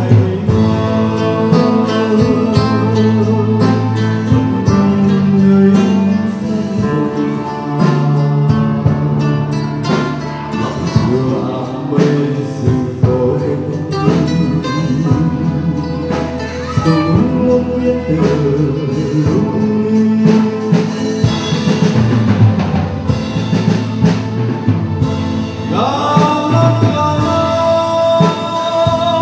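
A man singing a Vietnamese song into a handheld microphone, accompanied by a live band with electronic keyboard, guitar and drums, picked up by a camcorder's own microphone.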